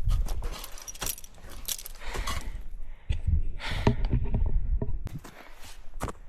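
A climber's footsteps, with metal climbing gear clinking and jangling at each step in irregular sharp clicks. Heavy low rumbling buffets come near the start and again about halfway through.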